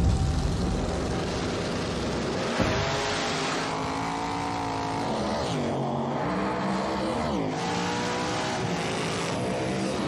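Drag-racing cars launching and running hard down the strip. The engine note climbs, drops sharply twice with gear shifts, and climbs again.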